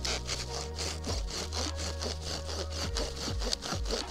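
Folding hand saw cutting through a log with quick, even back-and-forth strokes.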